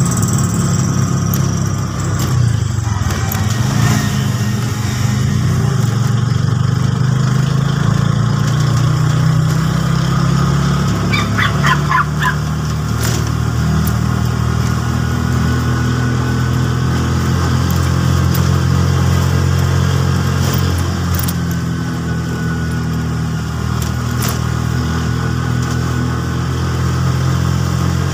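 A vehicle's engine running as it drives slowly, heard from inside the vehicle: a steady low drone whose pitch steps up and down several times as it speeds up and eases off. About eleven seconds in, a quick string of sharp high ticks sounds over it.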